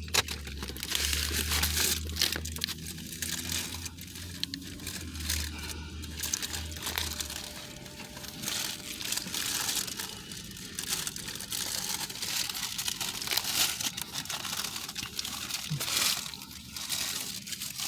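Paper sandwich wrapper and a condiment packet crinkling and rustling close to the microphone in irregular bursts. A low hum underneath stops about seven seconds in.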